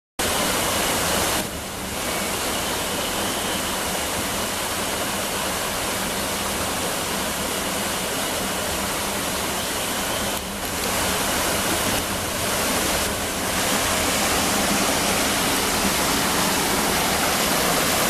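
Small waterfall pouring over rocks into a plunge pool and the stream running over rocks below, a steady rush of water that dips briefly twice.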